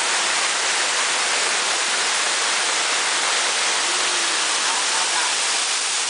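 Steady rush of the Véu de Noiva waterfall pouring into its pool.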